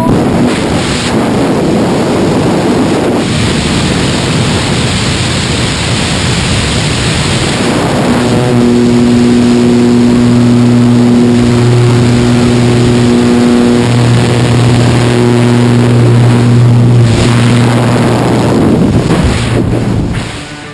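A small single-engine jump plane's engine and propeller droning steadily, with wind rushing loudly through the open door. The engine hum grows stronger about eight seconds in.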